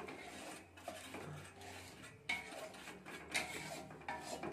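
A basting brush rubbing oil over a round, ribbed metal grill pan, with a few light metallic clinks of kitchenware.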